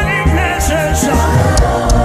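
Gospel worship music: a sung melody over a band with steady bass and cymbal hits.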